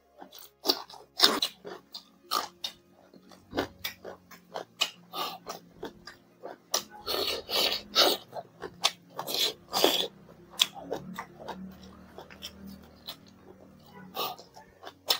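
Close-miked chewing and mouth smacking of a person eating rice and pork with his hands: irregular short wet-sounding clicks, coming thickest a little after the middle.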